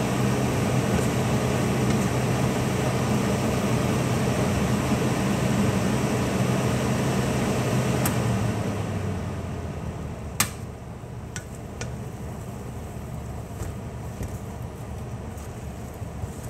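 Steady electric hum of a running kitchen appliance motor or fan, which cuts out about nine seconds in. Afterwards a sharp tap and a few lighter ticks of a wooden spatula against the metal pot as the cooked rice is stirred.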